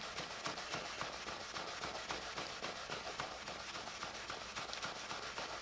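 Paper dampened with mineral spirits scrubbing a multimeter's plastic case in quick, even strokes, rubbing off permanent-marker ink.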